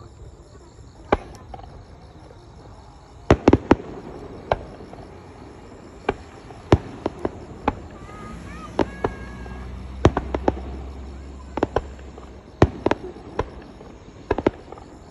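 Fireworks show: aerial shells bursting with sharp bangs at irregular intervals, a quick cluster of several about three and a half seconds in, then a steady string of single and doubled bangs.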